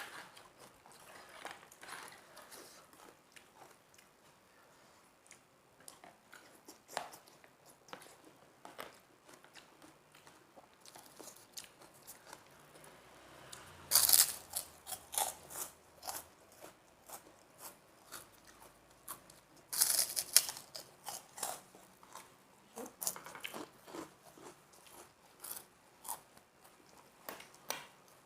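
Close-up eating sounds of a mukbang: chewing and crunching bites of krupuk crackers with instant noodles. There are two loud bursts of crisp crunching, about halfway through and a few seconds later, between quieter chewing clicks.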